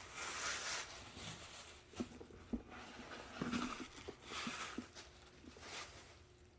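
Paper wrapping rustling and crinkling as it is pulled out of a leather tote bag, in about five bursts, with a few light knocks in between.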